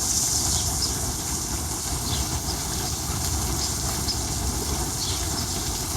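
Steady rain falling outdoors: an even hiss with a low rumble underneath and a few faint short high chirps.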